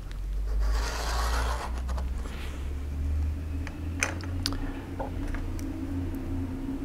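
A pen scratching along a steel rule as it draws a line on paper, followed by a shorter scrape as the combination square is slid away. Then two sharp clicks as pens are handled, over a steady low hum.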